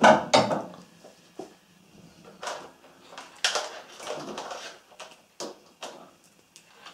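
Scattered light clicks, knocks and rustles of hand handling, with a louder clatter right at the start.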